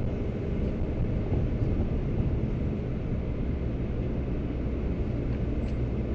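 VW Transporter T5 van driving slowly on snow, heard from inside the cab: a steady low rumble of engine and tyre noise.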